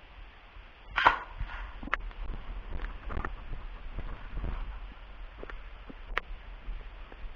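Rustling and footsteps of an airsoft player moving with gear, with a loud scraping rustle about a second in and a few sharp clicks.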